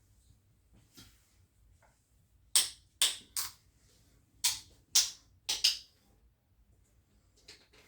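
Spinal joints cracking under a manual adjustment: a quick run of about seven sharp pops in three small clusters over some three seconds, then two faint clicks near the end.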